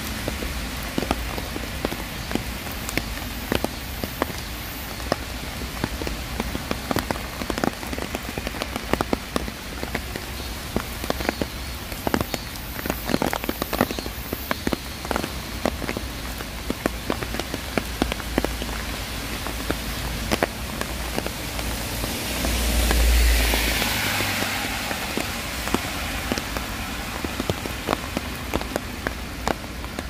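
Steady rain with many close, separate drops dripping and spattering. About twenty-two seconds in, a swell of hiss and low rumble rises and fades over a few seconds.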